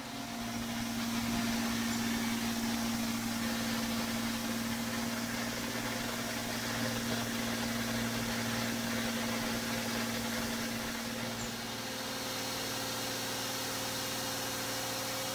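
Citroën C6 engine idling steadily, left running to warm up until the thermostat opens after the cooling system has been refilled and bled. Its tone shifts slightly about twelve seconds in.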